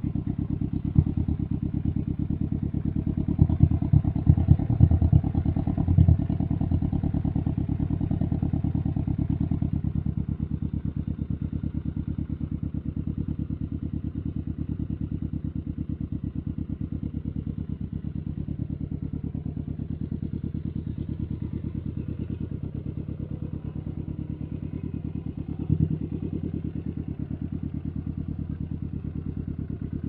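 Can-Am Ryker 600's two-cylinder engine idling through an RLS Stealth Series aftermarket exhaust, with a steady low pulse. Quick throttle blips come about a second in, several more between about four and six seconds, and one more near the 26-second mark.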